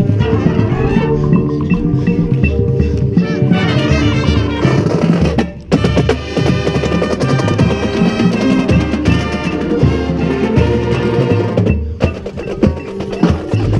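Marching band playing: wind and brass instruments over a drumline of snare and tenor drums. The music breaks off for a moment about five and a half seconds in, then goes on.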